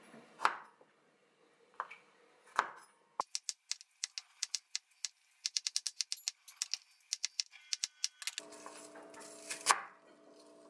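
Chef's knife slicing garlic cloves and then an onion on a wooden cutting board: a few separate knocks of the blade on the board, then a long run of quick knocks, several a second. Near the end a steady low hum comes in under the cutting, with one last loud knock.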